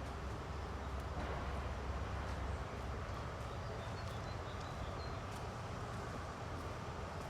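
City street ambience: a steady low rumble of traffic that eases about two and a half seconds in, with faint clicks and a few brief high chirps about halfway through.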